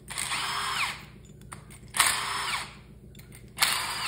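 Cordless drill spinning a head stud removal tool to unscrew head studs from an engine block, run in three short bursts that each spin up, hold, then wind down.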